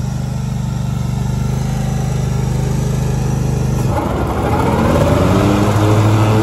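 Grasshopper 718K zero-turn mower's engine running steadily. About four seconds in it speeds up, its pitch rising and settling higher and a little louder.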